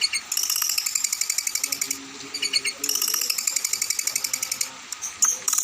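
Songbird singing rapid, rattling high-pitched trills in long runs. The trills break off about two seconds in and again near the end, where they give way to separate sharp chips.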